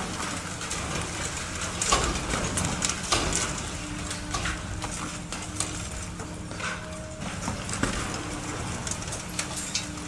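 High-reach demolition excavator working on a concrete building: its engine runs steadily under an irregular clatter of knocks as its jaws crush the concrete and chunks fall. The sharpest knocks come about two and three seconds in.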